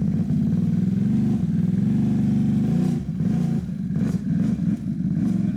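ATV engine running steadily for about three seconds, then revving up and down unevenly with some knocks and clatter.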